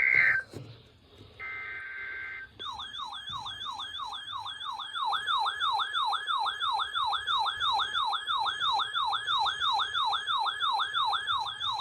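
Emergency Alert System tones. Two short, screechy bursts of digital header data come first, one ending just after the start and another about a second and a half in. Then, from about two and a half seconds, a siren-like attention tone warbles up and down about two to three times a second, announcing the next warning.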